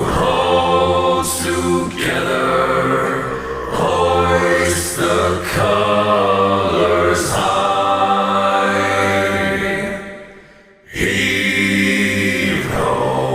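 Slow, chant-like a cappella singing of a pirate sea shanty, long notes held and drawn out, with a brief break about ten seconds in before the voice comes back.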